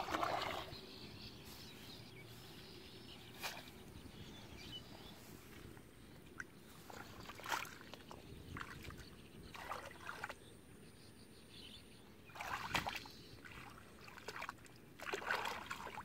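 Shallow muddy water splashing and sloshing as hands scoop and push mud under the water, in several short bursts a few seconds apart, the loudest near the end.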